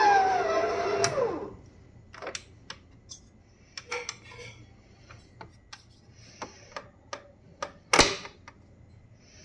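Stand mixer motor whining and then falling in pitch as it is switched off, winding down and fading out within about a second and a half. After that come scattered light clicks and knocks of the mixer and steel bowl being handled, with one sharp knock about eight seconds in.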